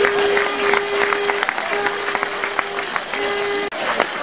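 Football crowd clapping and cheering, over which a single steady held note sounds three times: a long one, a shorter one, then a short one. The sound cuts off abruptly near the end.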